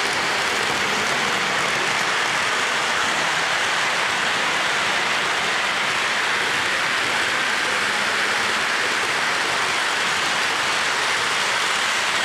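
Lionel O-gauge model trains running on the layout: a steady, even rolling noise of wheels and motors on the track.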